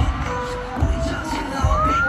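Live K-pop dance track played over a stadium sound system, with a heavy bass beat about twice a second under synth tones, heard from among the audience.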